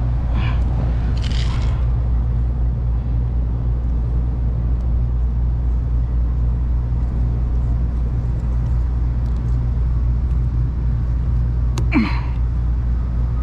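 Rooftop air-conditioning unit running with a steady low machine hum.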